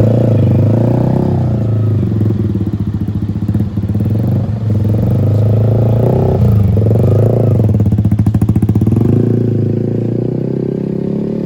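Yamaha XSR 155's single-cylinder engine through an aftermarket Orion header and SC Project muffler, very loud as the bike is ridden off. The note rises and falls a few times, dips briefly twice, and settles to a steadier, lower note near the end.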